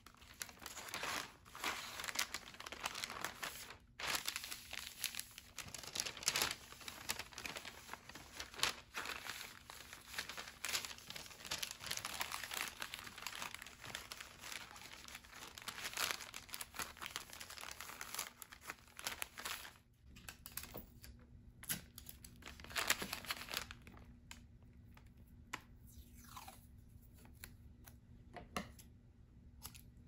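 Kraft paper bag being folded and creased by hand: dense, continuous crinkling and rustling of stiff paper, which thins out about two-thirds of the way through into occasional sharper crinkles.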